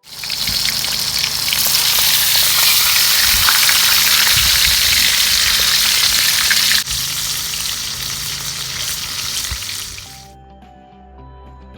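Whole barramundi frying in hot oil in a wok: loud, steady sizzling that starts suddenly, shifts slightly about seven seconds in, and dies away near the end, where soft music takes over.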